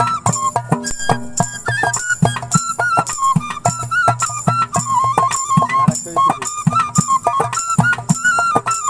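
Bamboo flute (bashi) playing a held, ornamented melody over a backing of bass notes and a steady beat with a rattling shaker about twice a second.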